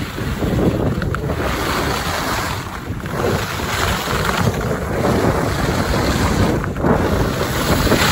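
Wind buffeting the microphone and skis hissing and scraping over groomed snow during a downhill run, the rush swelling and easing from turn to turn.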